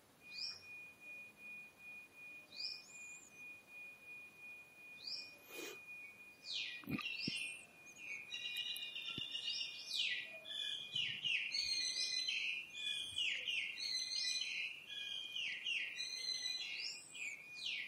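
Birds chirping and calling, a few scattered calls at first, then a dense run of quick chirps from about eight seconds in. A thin steady high tone sounds under them.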